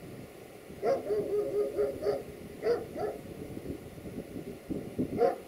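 A dog barking repeatedly in short barks. There is a quick run of yips soon after the first bark, more barks around two and three seconds in, and another pair near the end.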